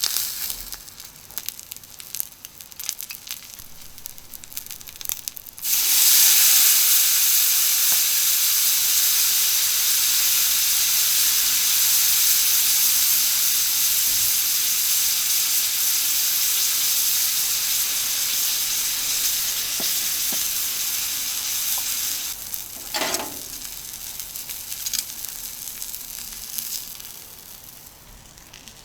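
Liquid hitting a hot iron griddle under searing steak: a sudden loud sizzle and hiss of steam that starts about six seconds in, holds steady, then slowly dies away, typical of a soy sauce and sake seasoning splashed on to finish the meat. Light clicks and crinkles come before it, and a brief knock or scrape sounds as the sizzle fades.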